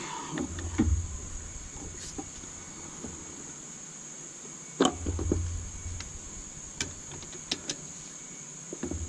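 Hand tools on cylinder head bolts as they are broken loose: scattered metallic clicks and knocks from the socket and bar, with a sharp crack about five seconds in.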